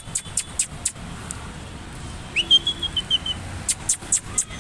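Street traffic hum with runs of quick, light, scratchy ticks near the start and again near the end. About two and a half seconds in, a short high whistle rises and then holds with a few small breaks for about a second.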